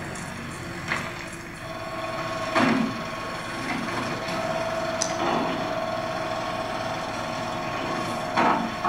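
Metal hand tools knocking on stone, four sharp irregular strikes, over a steady machine hum that comes in about a second and a half in.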